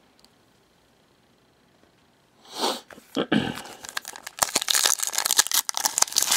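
A foil trading-card pack wrapper being handled and torn open by hand. After a quiet start it begins with a rustle about two and a half seconds in, then turns into a dense crackling crinkle.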